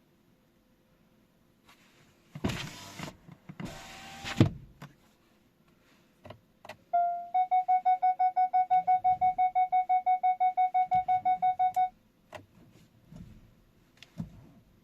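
Electronic warning beeper: a short steady tone, then a fast run of identical beeps, about six or seven a second, lasting about five seconds. Before it come two noisy rushes, the second ending in a thump.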